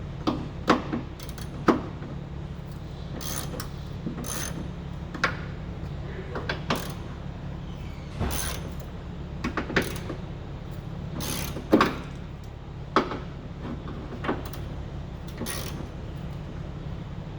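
Hand tools working on metal: irregular clicks and clanks, roughly one every second or so, over a steady low hum.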